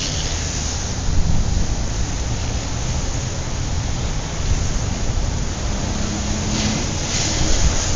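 Steady low rumbling noise with a hiss over it, with no distinct events; a faint hum comes in briefly about six seconds in.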